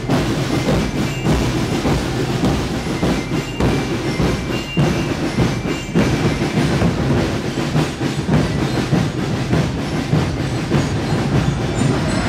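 A marching band playing as it passes close by: drums beating a steady rhythm, with the band's instruments carrying a tune over them.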